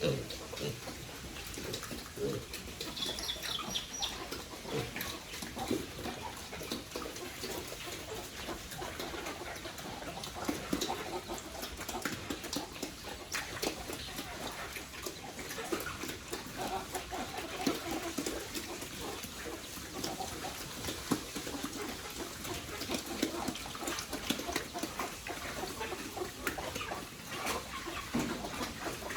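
Farmyard animals: fowl clucking over many small clicks and knocks, with a short high chirp about three seconds in.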